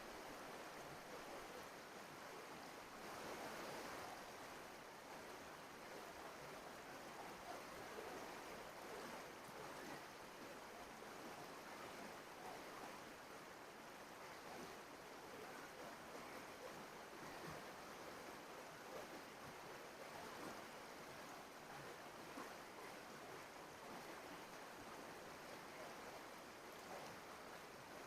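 Small trout brook flowing, a faint, steady rush of running water.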